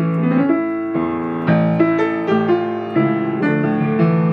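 Grand piano played solo: a melody over chords, the notes struck and held so that they ring into one another.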